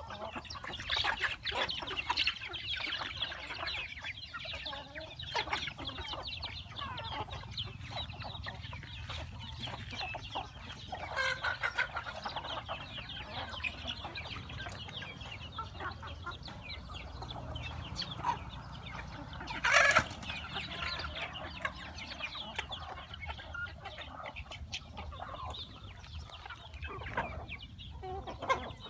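A flock of chickens and roosters clucking continuously as they peck at scattered grain. There is one brief, much louder burst about two-thirds of the way through.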